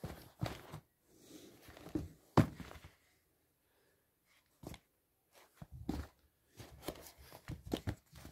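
Used sneakers being handled and set down on a rug: irregular soft thumps and rustling of shoe fabric and laces, with one sharper knock about two and a half seconds in.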